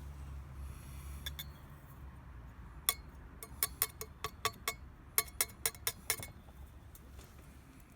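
A quick series of about a dozen light, ringing clinks, like hard objects knocking together, over a low steady hum that fades near the end.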